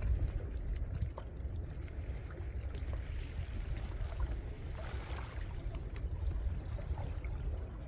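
Sea water washing against shoreline rocks, with wind rumbling on the microphone; a louder, hissing wash about five seconds in.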